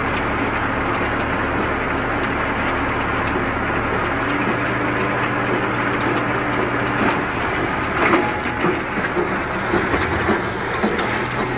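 Tractor-driven round baler running, with the steady hum of the engine and a noisy mechanical rush from the machine. Repeated sharp ticks run throughout, and louder irregular clattering comes in about two-thirds of the way through.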